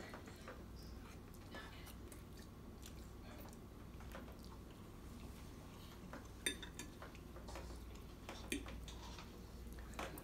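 Faint clinks and scrapes of forks on glass plates as spaghetti is twirled and eaten, with scattered small clicks and a few sharper ones past the middle and near the end, over a low steady room hum.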